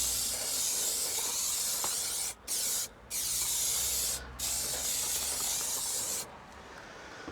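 Aerosol can of trim fix spray adhesive hissing as it sprays, in long bursts with brief pauses, stopping about six seconds in.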